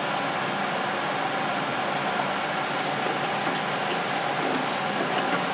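Steady, even background hiss, with faint light clicks in the second half as a small circuit board and pliers are handled.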